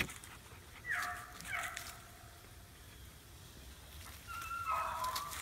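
Beagles giving voice: two short yelps that drop in pitch about a second in, then a longer pitched cry near the end. A sharp click at the very start.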